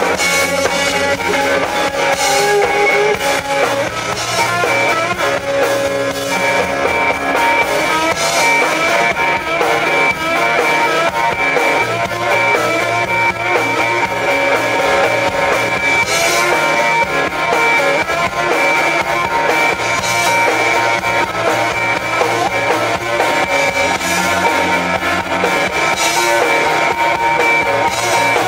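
Live instrumental music: an electric guitar played over a drum kit, with long held guitar notes and cymbal crashes every few seconds.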